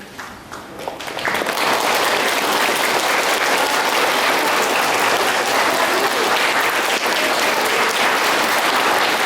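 Audience applauding, building up over the first second or so, then steady, sustained clapping.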